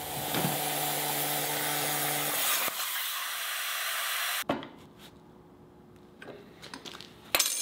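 CNC plasma cutter cutting steel plate: a loud, steady hiss with a low hum that cuts off abruptly about four and a half seconds in. After it come a few light metal clicks and a sharp metal clank near the end as a bolt is tightened with a wrench.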